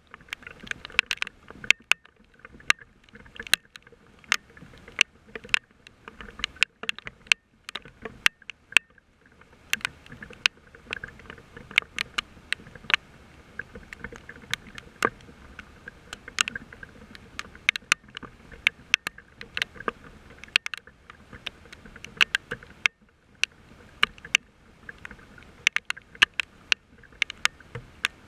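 Rain: drops striking close to the microphone in irregular sharp taps, several a second, over a steady hiss of falling rain.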